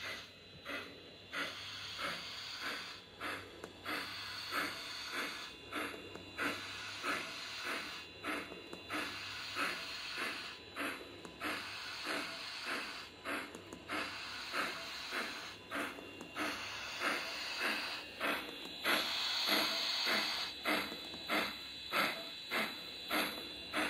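Steam locomotive exhaust chuffs with a steady hiss underneath, played by a Zimo DCC sound decoder through the speaker of a USA Trains FEF-3 large-scale model. The chuffs come about one to two a second. A longer hiss of steam comes about three quarters of the way in, and the chuffs quicken to about two a second near the end.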